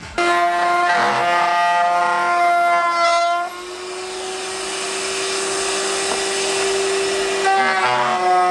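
Router mounted in a router table running at high speed while a walnut block is fed past the bit to round its edges and cut a finger groove. The whine is louder under the cut for about the first three and a half seconds, eases off, then loads up again near the end.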